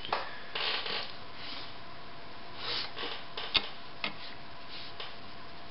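Scattered light clicks and short rustles of hands handling cloth, thread and the presser-foot area of a Singer 15-91 sewing machine. The sharpest click comes about three and a half seconds in.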